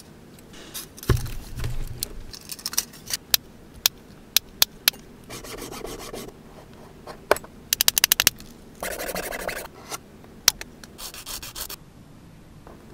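Small craft tools worked by hand on a desk: short bursts of rubbing strokes from a sanding stick on a small piece, broken up by sharp clicks and taps of tools being picked up and set down. A low thump about a second in, and a quick run of clicks about two-thirds of the way through.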